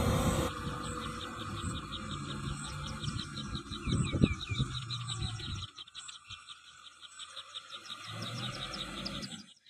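Rapid, evenly spaced high chirping, about five calls a second, over a low rumble that fades about six seconds in and returns near the end. A louder, steady mechanical noise stops abruptly half a second in.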